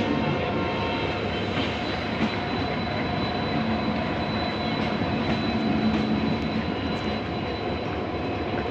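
Passenger train rolling steadily out of the station, a continuous rumble from the wheels and coaches with a few faint steady whining tones above it.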